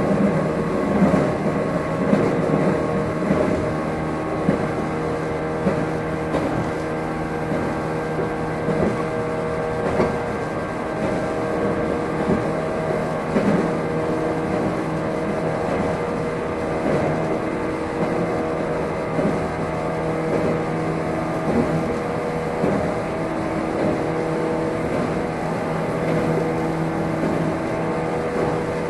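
Running sound heard inside a JR 115 series electric multiple unit's motor car (KuMoHa 115): the MT54 traction motors and gears whine at several steady pitches as the train runs at a constant speed. Scattered knocks come from the wheels over the rail joints.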